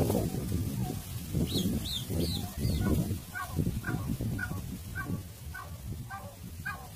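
Domestic turkey calling: a series of short, evenly spaced yelps, about two a second, from about three seconds in, after a few brief high chirps. Low rumbling noise sits under the first half.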